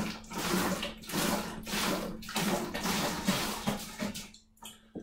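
Pineapple juice glugging out of a carton and splashing into a plastic brewing bucket, the pour stopping about four seconds in.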